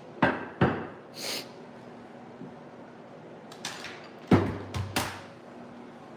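Kitchen handling noises: sharp knocks and clunks, two right after the start and three more about four to five seconds in, with a short scrape between them.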